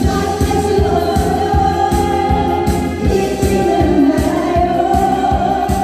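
Several women singing a Korean trot song together into microphones, over an amplified backing track with a steady beat.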